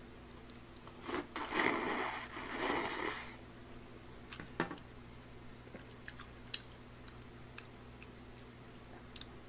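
A person eating noodles from instant tteokbokki with chopsticks: a loud slurp about a second in, lasting about two seconds, then chewing with small scattered clicks.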